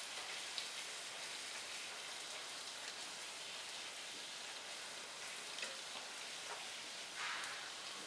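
Puri deep-frying in hot oil in a kadhai: a steady crackling sizzle, briefly louder about seven seconds in.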